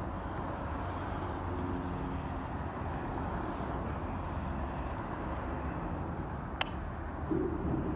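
Road traffic crossing a highway overpass: a steady rumble of tyres and engines, with one sharp click about two-thirds of the way through.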